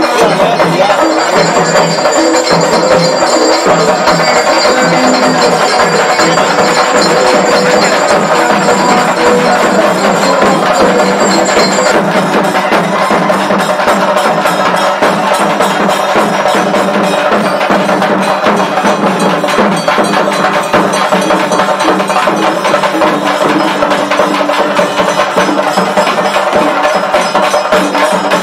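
Loud temple festival music: fast, dense percussion with bells ringing over it. A thin high ringing tone holds until about twelve seconds in.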